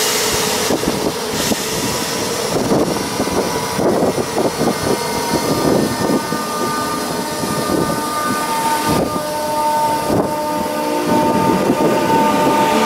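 Northern Class 319 electric multiple unit running through a station: steady rolling noise with knocks and clatter from the wheels over the rails. A steady whine rises in level in the second half.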